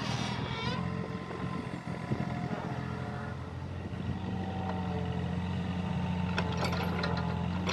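Mini excavator's engine running steadily, with a high whine fading out in the first second and a few clattering knocks near the end as the machine works.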